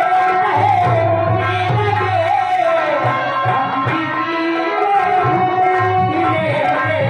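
Bhojpuri nautanki stage music: hand drums keep a steady rhythm under a melody that bends and slides in pitch.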